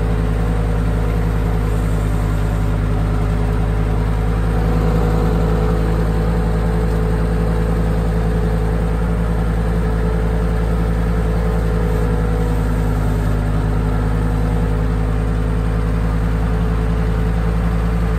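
Forklift engine idling steadily, a constant low hum that doesn't change in pitch.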